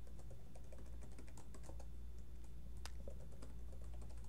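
Typing on a computer keyboard: a run of quiet, irregular key clicks while a login password is entered, with one sharper click about three seconds in.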